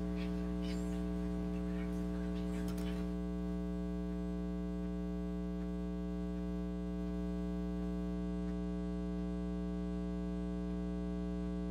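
Steady electrical hum and buzz from the sound system, unchanging throughout, with a few faint rustles and clicks in the first few seconds.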